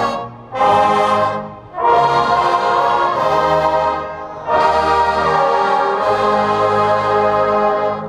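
Marching band brass section (trumpets, baritones and sousaphones) playing loud held chords: two short blasts, then longer sustained chords with a brief dip a little past halfway.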